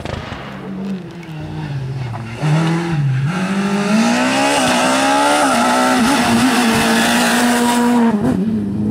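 Rally car engines at speed: first a quieter car running, then a Škoda Fabia S2000 rally car passing close at full throttle, louder from about two and a half seconds in. Its engine revs up and drops back several times through gear changes, then holds a steady high note.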